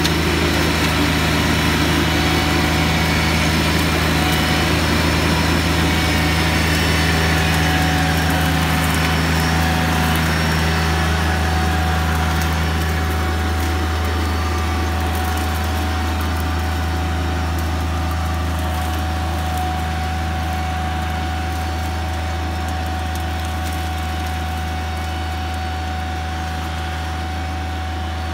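Engine of a remote-controlled tracked flail mower running steadily while its flail head cuts through brush, with a whine that falls slowly in pitch over the first ten seconds or so. The sound gradually grows quieter.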